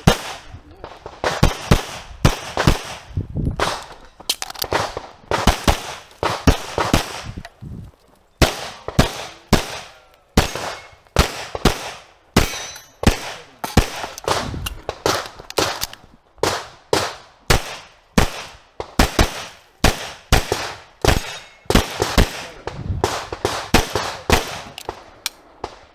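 Handgun shots fired in quick strings of two to four, with short pauses between strings, through a whole practical-shooting stage run.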